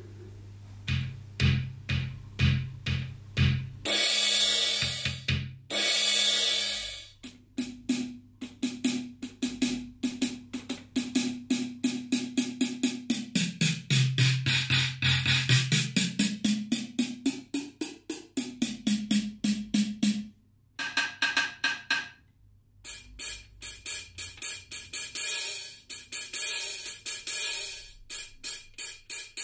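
LinnDrum drum machine's drum sounds triggered one by one from its buttons: a few low drum hits, then two long cymbal-like crashes. Next comes a fast run of pitched drum hits whose pitch dips and then rises, and near the end, rapid bright hi-hat-like ticks.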